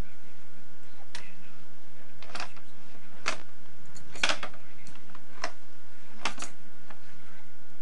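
Sharp plastic clicks, about one a second and unevenly spaced, from a baby handling the ring-and-bead toy on a baby walker's plastic tray.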